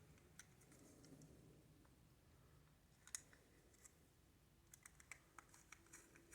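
Near silence broken by faint, scattered clicks of a small screwdriver driving screws back into a plastic toy's housing, with a small cluster of clicks near the end.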